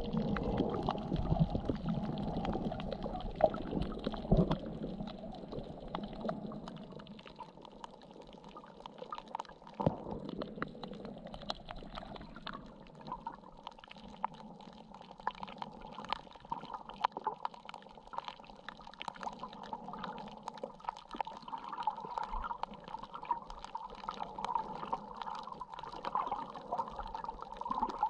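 Underwater ambience recorded through a camera's waterproof housing: muffled water noise with many small scattered clicks and crackles, with louder low rumbling in the first few seconds.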